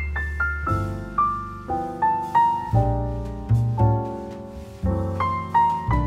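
Background piano music: a gentle melody of single notes, struck roughly two a second, each fading after it sounds, over low held bass notes.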